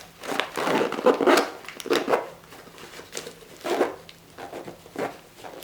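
Irregular rustling, crinkling and scraping as a nylon first aid pouch and its plastic-wrapped supplies are handled, in several short bursts.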